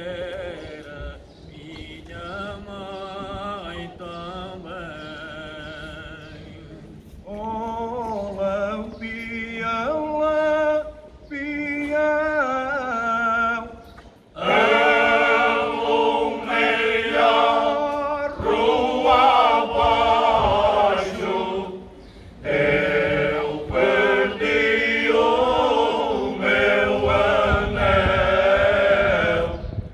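Men's choir singing cante alentejano, unaccompanied in slow, drawn-out lines. The singing is quieter at first, and the full choir comes in loudly about halfway through.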